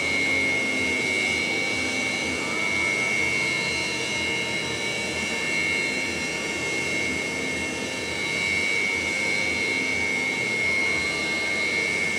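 Su-30MKM fighter's jet engines running at ground idle: a steady roar with a constant high-pitched whine over it.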